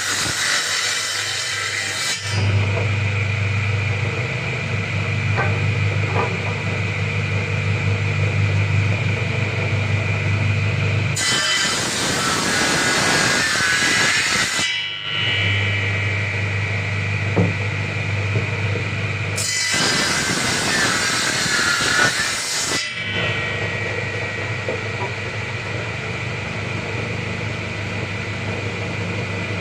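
A power tool running with a steady motor hum while sawing wood. The sound changes abruptly a few times, and twice a harsher, hissier cutting noise takes over for a few seconds.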